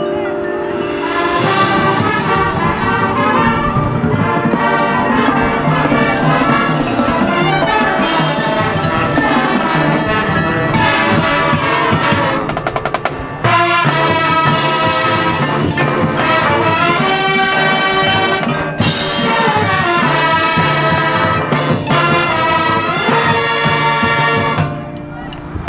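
High school marching band playing a loud brass passage with percussion. The band drops away briefly about halfway through, then comes back in, and goes quieter again near the end.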